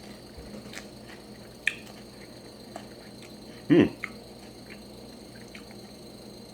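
Quiet eating sounds, small clicks of mouth and utensil as a first bite of raw beef is taken and chewed. About halfway through comes one short vocal sound that falls sharply in pitch.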